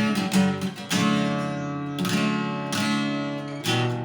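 Acoustic guitar strumming a chord passage, the interlude played between verses of the song. Chords are struck about once a second and left ringing.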